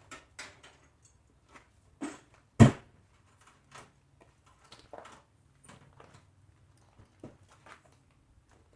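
Scattered knocks and clunks of things being handled, with one loud thump about two and a half seconds in.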